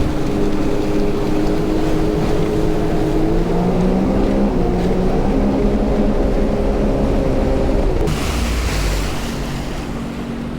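Sea-Doo Fish Pro jet ski engine running under way, its pitch rising about a third of the way through. Near the end the engine note drops and quietens, with a brief rush of water spray.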